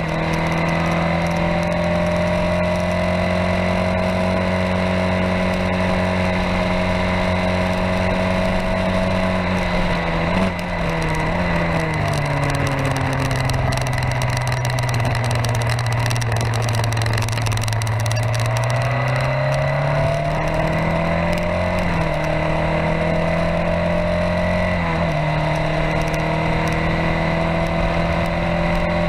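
Open-wheel formula race car's engine heard from a camera mounted on its roll bar, held at high revs, then dropping in pitch about ten seconds in as the car slows, pulling low for several seconds, and climbing again with two upshifts in the last third before holding high. Wind rush over the camera runs underneath.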